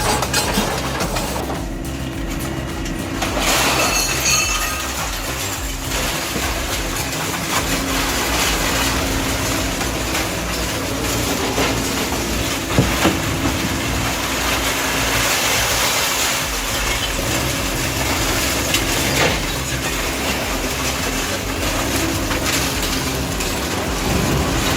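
Industrial twin-shaft shredder tearing through light scrap metal: a continuous crunching, grinding clatter of metal being pulled in and sheared by counter-rotating hooked cutters, over a steady drone from the machine's drive.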